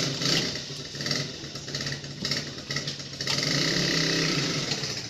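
A motor vehicle engine running steadily, louder for a stretch in the second half.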